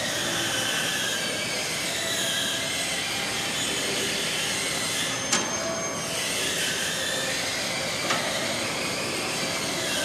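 Steady machine noise with a high whine that slides down in pitch and back up, and two sharp clicks about three seconds apart.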